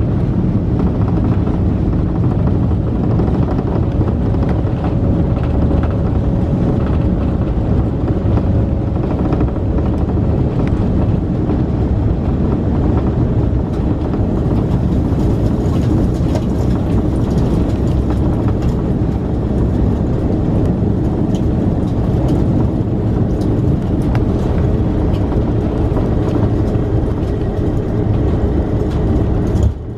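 Airbus A330-200 airliner rolling out on the runway after landing, heard inside the passenger cabin as a steady, loud low rumble of engines, wheels and airframe.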